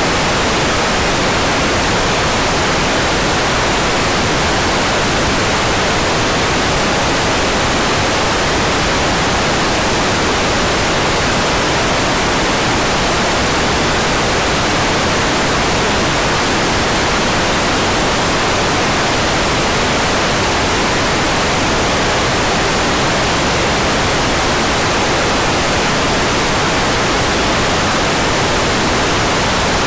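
Hairdryer blowing steadily, a constant, even rushing hiss that does not change.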